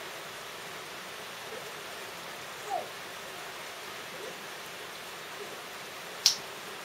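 Steady hiss of rain falling outside. A few faint short notes come through it, and one sharp click sounds about six seconds in.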